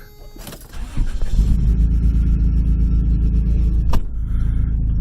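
Car engine starting about a second in, then running with a steady low rumble. A single sharp knock comes about four seconds in.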